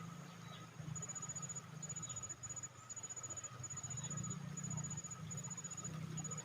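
An insect chirping in repeated short, rapid, high-pitched trills, over a low steady hum.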